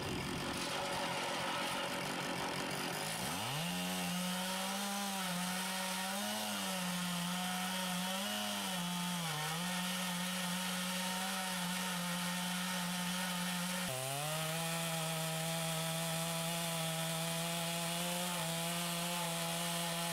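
Two-stroke Stihl chainsaw in a chainsaw mill, revving up to full speed about three seconds in and then running steadily under load as it rips lengthwise into a white oak log. Its pitch wavers for a few seconds and sags briefly partway through as the bar bites.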